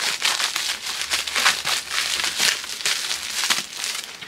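Packaging crinkling and rustling in the hands as a parcel is opened, in an uneven run of rapid crackles.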